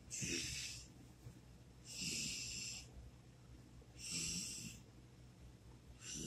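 A person's noisy, rasping breaths, snore-like, four of them about two seconds apart.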